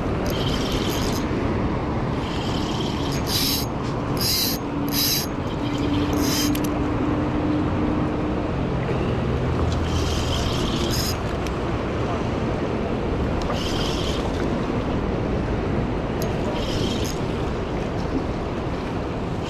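Steady rushing noise of surf and wind at the shore, with short hissy flare-ups every few seconds.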